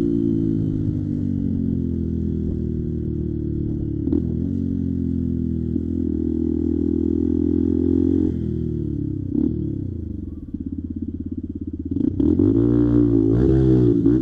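Motorcycle engine under way: it holds steady, then the revs fall as the bike slows, drop to a slow, even low-rev beat about ten seconds in, and pick up again as the throttle opens near the end.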